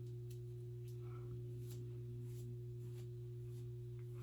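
Steady low electrical hum with a second, higher steady tone over it, and a few faint brief rustles as the wig hair is handled.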